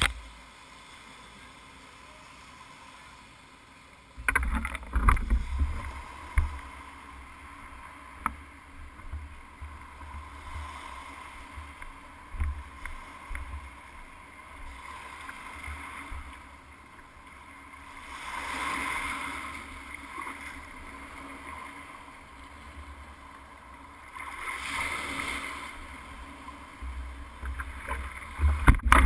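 Wind on the microphone of a GoPro mounted on a longboard, with irregular knocks and low rumble as the board is handled, starting about four seconds in. Surf washing onto the shore swells up and fades twice, and water sloshes against the board near the end.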